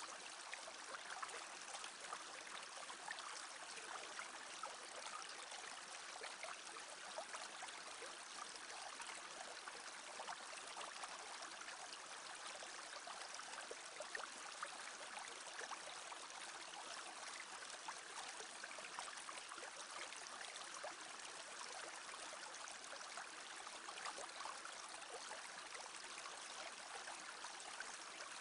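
A small brook babbling steadily, a continuous trickling and burbling of water, with the light splashing of a turning water wheel mixed in.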